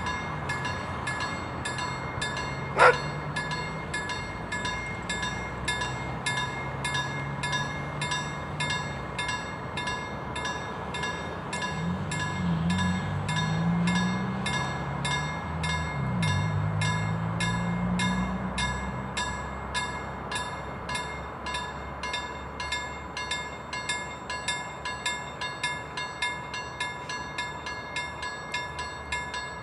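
A steady, rhythmic ringing of about two and a half strikes a second at an unchanging pitch runs throughout. There is a single sharp knock about three seconds in, and a car drives past about halfway through.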